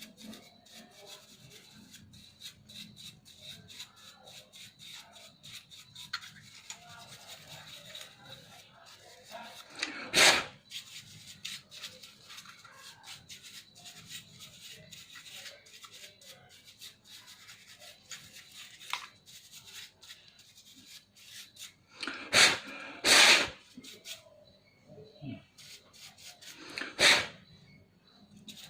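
Laptop cooling fan being cleaned of dust by hand: quiet continual rubbing and small scratchy clicks, with a few short, much louder noisy bursts about a third of the way in and three more near the end.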